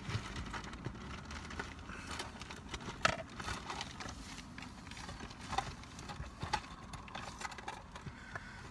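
A hand rummaging through plastic cutlery and packaging: soft rustling with scattered light clicks and taps, the sharpest about three seconds in.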